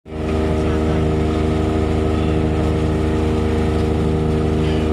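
A ship's engine running steadily while the vessel is underway, heard from the deck. The sound is a constant low drone with a steady hum above it.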